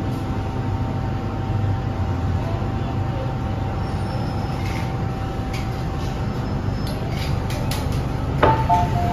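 Running rumble of an MTR M-train carriage with a thin steady whine and scattered clicks as it slows into a station. About eight and a half seconds in comes a knock, then the two-tone door chime starts, alternating between two notes, as the doors are about to open.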